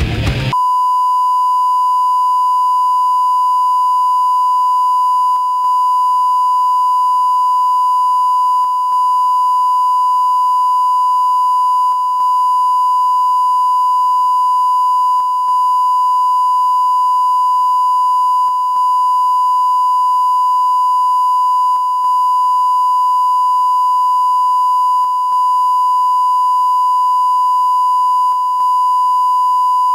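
Videotape line-up test tone accompanying colour bars: one steady, loud, unchanging pitch with a brief dip about every three seconds. Heavy rock music cuts off just after the start.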